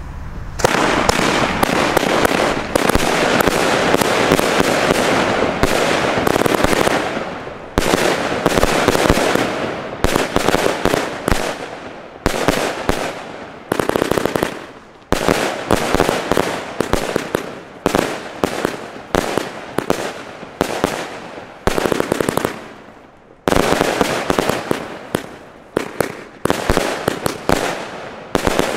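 Funke Raptor Princess 100-shot, 25 mm firework cake (battery) firing. For the first several seconds the shots and bursts run together into one dense volley. After that they come as separate salvos of sharp bangs about every second and a half, each salvo dying away before the next, with a brief lull shortly before the last few.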